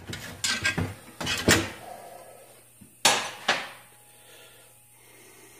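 Sharp metallic knocks of a hammer on thin sheet-steel panel pieces, knocking apart a seam whose spot welds have been ground down to weaken them. A quick run of knocks comes in the first second and a half, and two more about three seconds in.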